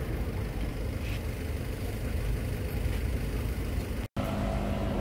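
Low, steady rumble of car engines idling in a stopped line of road traffic. The sound cuts out for an instant a little after four seconds in, and a steady engine hum follows.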